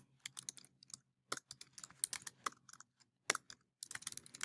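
Typing on a computer keyboard: faint, irregular key clicks in quick runs with short pauses.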